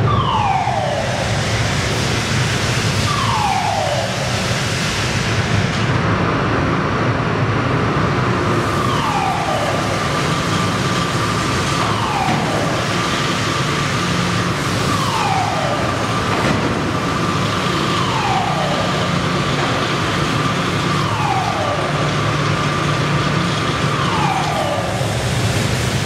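Steady industrial roar of a blast furnace cast house during tapping, with a warning siren sounding a falling tone about every three seconds. A steady high tone joins about six seconds in.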